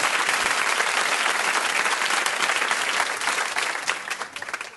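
Audience applause: dense clapping that thins into separate claps and fades out near the end.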